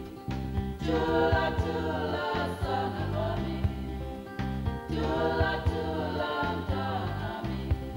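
Background music: a choir singing in harmony over an instrumental backing with a regular beat.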